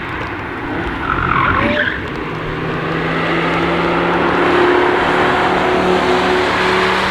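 Car driving past on the wet race track: a steady engine note under a loud hiss of tyres on standing water, growing louder to a peak about halfway through.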